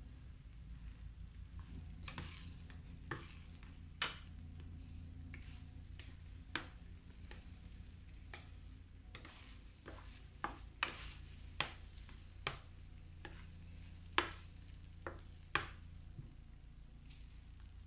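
Black spoon stirring and scraping thick semolina halwa in a stainless steel frying pan, with a soft sizzle and irregular sharp clicks and scrapes as the spoon knocks against the pan. Milk with saffron is being worked into the roasted semolina as it thickens.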